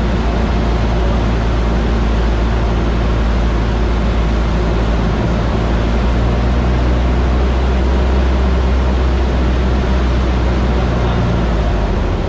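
Cabin noise of a light single-engine propeller plane on final approach: a steady engine and propeller drone with air rush. The engine note shifts slightly near the end as the plane flares over the runway.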